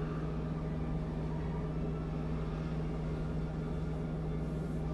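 Steady low mechanical hum from a running machine or appliance, unchanging throughout.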